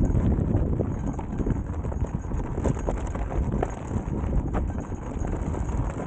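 Electric unicycle tyre rolling over loose gravel, with irregular crunches and stones clicking, under a low wind rumble on the microphone.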